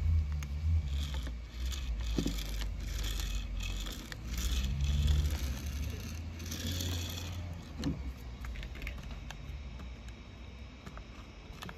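A toy monster truck's plastic wheels, coated in wet paint, rolling and scraping across paper on a table as it is pushed by hand, with a low rumble under the scratching for about seven seconds. Then lighter clicks and taps as the toy is handled.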